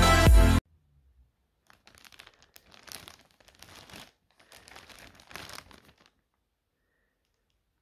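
Electronic dance music, the loudest sound, cuts off suddenly just over half a second in. Then the plastic wrapping of a pack of pull-up diapers crinkles in three spells as a hand handles and turns the pack.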